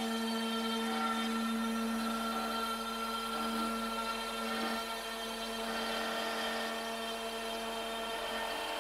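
Router spindle on a homemade CNC machine running steadily while its bit cuts a groove in plywood: a steady motor whine over the noise of the cut.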